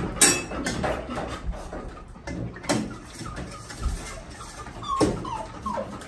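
A dog whining for food, with a few short high whines near the end, over sharp metallic clanks from a steel kennel door and a stainless steel food bowl.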